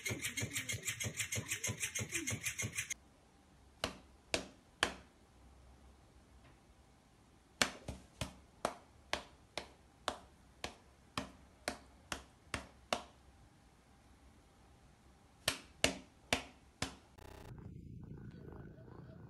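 An electric flopping fish cat toy flapping in a fast even rhythm, about seven beats a second, stops about three seconds in. Then come runs of sharp taps, about two a second, as a cat bats its paw at a hand. Near the end a faint low purr is heard as a cat mouths a fleece blanket.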